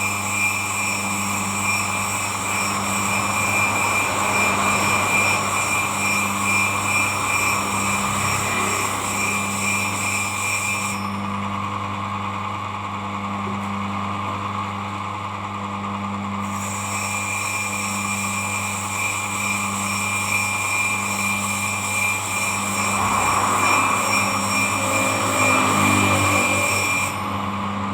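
Electric motor running steadily with a low mains hum, with a hissing scrape that swells twice.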